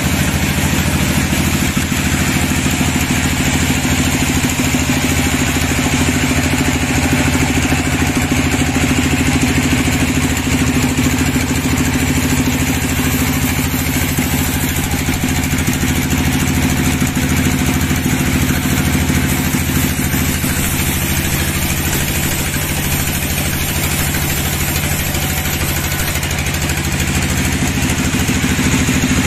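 Large sawmill band saw running steadily, a constant engine-like hum with no change in pitch or loudness, free-running between cuts.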